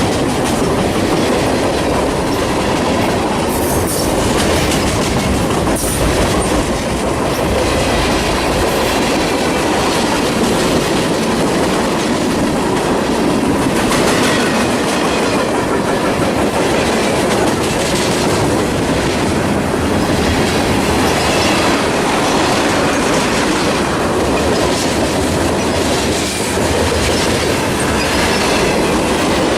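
Freight train cars rolling past, a loud steady rumble with the wheels clacking over rail joints.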